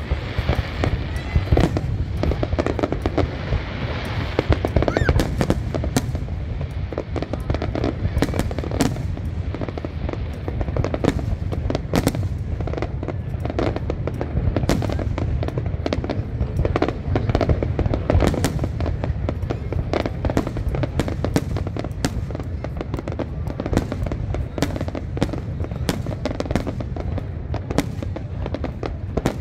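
Fireworks display: a dense, continuous barrage of sharp bangs and crackles over a steady low rumble.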